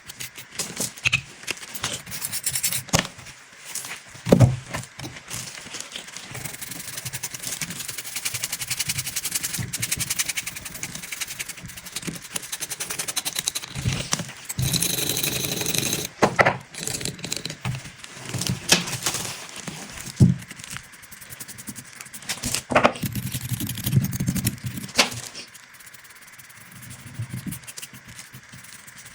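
Hand tools working on the rusty metal parts of an old alarm clock: a long stretch of scratchy scraping or brushing in the middle, with scattered sharp clicks and knocks of small metal parts throughout.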